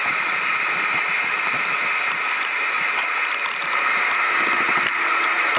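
Steady loud hiss of background noise, with scattered light clicks and taps from hands working at the radiator's lower hose and line fittings.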